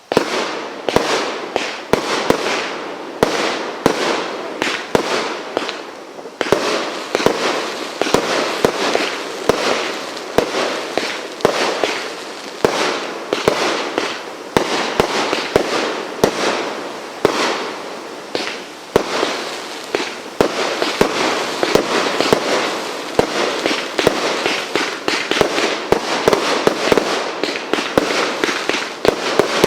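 Firework cake firing a continuous string of shots, about one or two sharp bangs a second with crackle in between.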